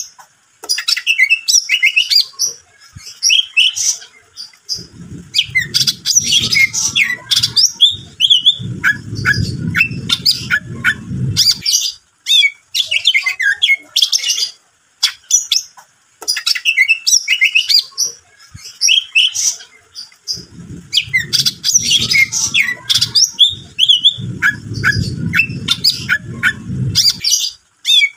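Greater green leafbird (cucak ijo) singing a loud, fast run of varied chirps, trills and whistles with short pauses. The same passage of song repeats about every 15 seconds, as a looped lure recording would. Twice in each pass there is a low muffled rumble under the song.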